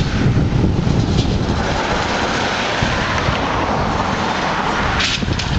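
Wind buffeting the camcorder microphone: an irregular low rumble, with a steady rushing hiss that builds about a second and a half in and a brief crackle near the end.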